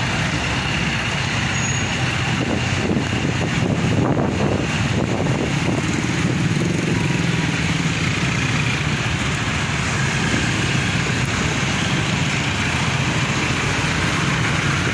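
Street traffic on a wet road: motor scooters and cars passing with engines running, and tyre noise on the wet asphalt, a steady mix with no single event standing out.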